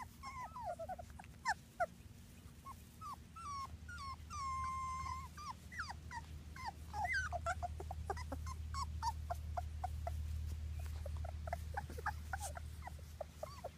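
Three-week-old Labrador puppies whimpering and squeaking in many short high calls, with one longer steady whine about four and a half seconds in. A steady low hum runs underneath, growing louder in the second half.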